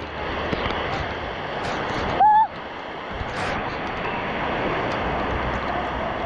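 Steady rain pouring down, an even rushing hiss. About two seconds in, a single short, loud beep-like tone cuts through it.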